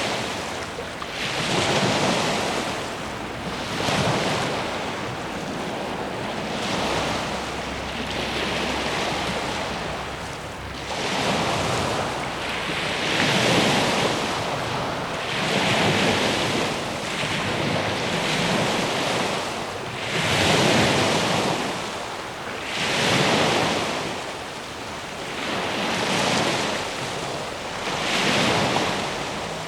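Gentle ocean waves washing in, swelling and falling back in a slow rhythm about every two to three seconds.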